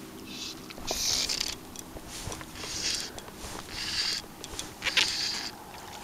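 Fly line being stripped in by hand during a streamer retrieve: a rasping swish of line through the fingers and rod guides, repeated irregularly about once a second.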